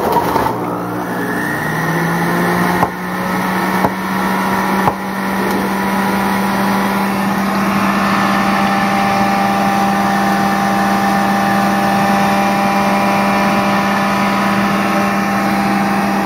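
Kitchen Living centrifugal juice extractor's motor spinning up over the first two seconds, then running steadily and loudly while it juices apple chunks. A few sharp knocks come in the first five seconds.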